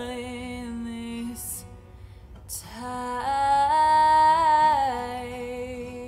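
A woman singing long held notes with acoustic guitar accompaniment. She dips quiet around two seconds in, swells into a louder sustained phrase, and eases into a softer steady held note near the end.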